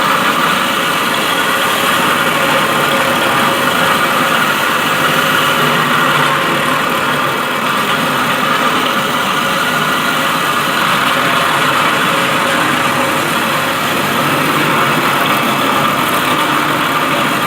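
Electric concrete floor grinder running steadily, its diamond tooling grinding a concrete floor in one unbroken, even noise.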